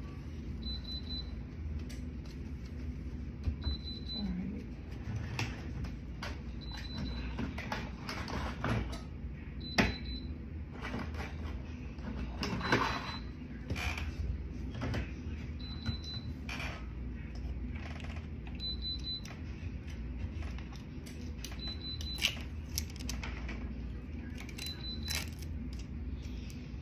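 Tumbler heat press giving a short high beep about every three seconds, its signal that it is up to temperature. Scattered knocks and rustles of a paper towel, the tumbler and a paper sheet being handled.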